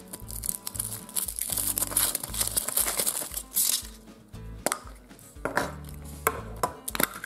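Thin foil wrapper of a chocolate surprise egg crinkling as it is peeled off, followed by a few sharp cracks and clicks as the chocolate shell is broken and the plastic toy capsule inside is snapped open.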